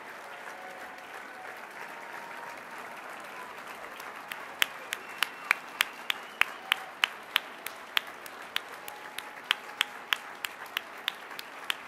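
Audience applauding steadily. From about four seconds in, one person's clapping stands out louder than the rest, sharp claps about three a second.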